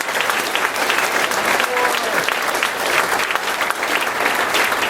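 Audience applauding, with a few voices calling out among the claps.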